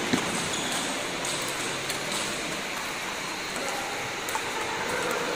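A table tennis ball struck by a paddle with one sharp knock just after the start. It is followed by steady sports-hall background noise with a few faint scattered clicks.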